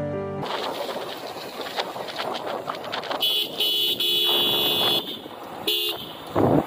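Motorcycle horn honking while riding: one long honk of nearly two seconds about three seconds in, then a short honk, over steady wind and road noise from the moving bike. A loud burst of noise comes near the end.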